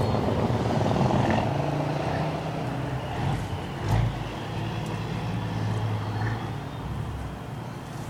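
An engine running steadily in the background, a low even drone, with a brief thump about four seconds in.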